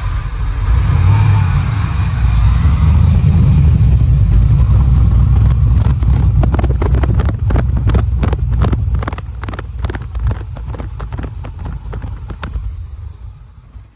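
Chevrolet LS376/525 crate V8 running through Hooker Blackheart headers and 3-inch stainless Blackheart mufflers. It surges about a second in, then settles into an evenly pulsing idle that fades away near the end.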